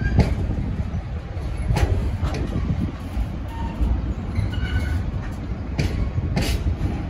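Container freight train's wagons rolling past close by: a steady low rumble with irregular wheel clacks.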